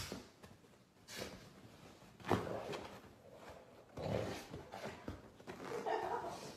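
Blanket fabric rustling and shuffling in irregular bursts as a golden retriever noses and pushes its head into the blanket covering a person on a sofa.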